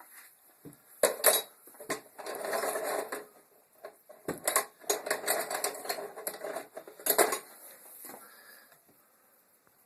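Metal spanners and hand tools clinking and clattering as they are handled and sorted through: several sharp metallic clinks with stretches of rattling in between.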